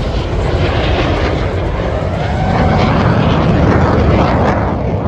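Jet aircraft flying past with a steady engine roar, swelling slightly about three to four seconds in.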